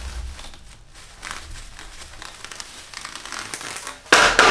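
Packaging crinkling and rustling as a stapled rod shipping tube is worked open by hand, with a sudden loud rip about four seconds in.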